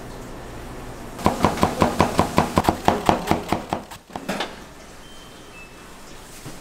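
Rapid, evenly spaced strikes on a kitchen cutting board during pork cutlet preparation, about six a second for roughly two and a half seconds starting about a second in, followed by a couple of single knocks.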